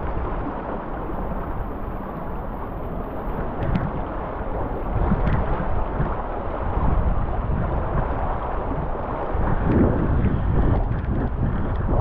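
Fast floodwater of the Mahoning River rushing and churning, with wind buffeting the microphone. The water noise grows louder near the end.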